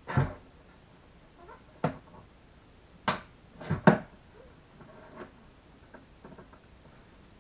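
Several sharp knocks and clicks from handling an aquarium's hang-on filter while fitting it onto the tank rim, the loudest near the start and about four seconds in.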